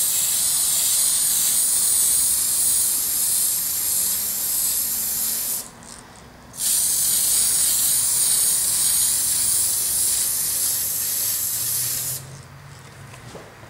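Tamiya aerosol spray-paint can hissing in two long bursts of about five and a half seconds each, with a break of about a second between them; the hiss is high and steady.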